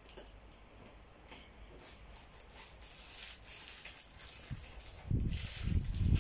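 A coin scraped over oiled skin in repeated short strokes (kerokan, Indonesian coining), each stroke a faint rasp. About five seconds in, loud irregular low rumbling thumps take over.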